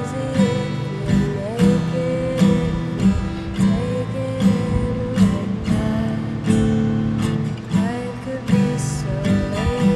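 Acoustic guitar strummed in a steady rhythm, with a voice singing a slow melody over it.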